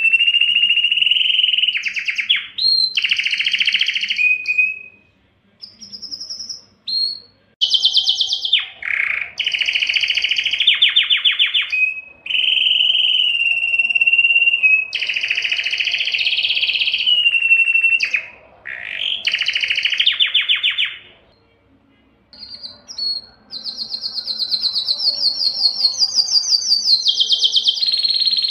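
Domestic canary singing a long song that alternates held whistles with fast rolling trills. It breaks off briefly about five seconds in and again just past twenty seconds.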